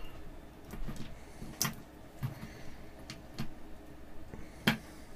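Crocodile-clip test leads being handled and unclipped: a few sharp plastic-and-metal clicks with light knocks between them, the loudest click near the end.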